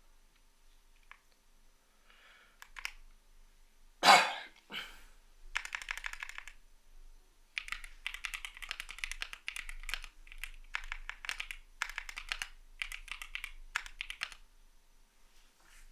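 Typing on a CIDOO V75 mechanical keyboard with Matte switches: runs of rapid keystroke clacks in spurts with short pauses, starting about five and a half seconds in. Just before them, about four seconds in, come two louder, deeper knocks.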